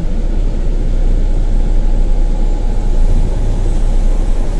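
Loud, steady low engine rumble.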